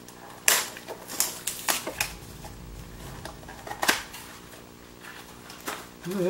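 A HorrorClix figure pack's plastic wrapper being torn open and crinkled by hand: a few sharp, irregular crackles with quieter rustling between them.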